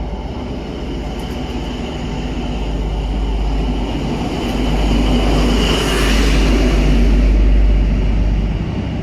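Class 43 HST departing under power: the coaches rumble past on the rails, then the rear power car's Paxman VP185 diesel engine passes, building to its loudest about five to eight seconds in, with a faint high whistle as it goes by.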